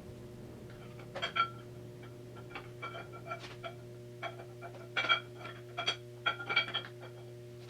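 New camshaft being slid into a Triumph TR6 six-cylinder engine block: a run of sharp metallic clinks and taps, each ringing briefly at the same bright pitch, in clusters about a second in, around five seconds in and near six and a half seconds. A steady low electrical hum underlies it.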